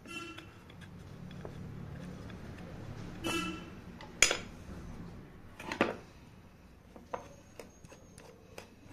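Metal clinks and knocks from handling a ceiling fan's motor housing: two ringing clinks, the first near the start and the second a little after three seconds in, then two sharp knocks, with light clicks near the end as a screwdriver goes into the cover's screw holes.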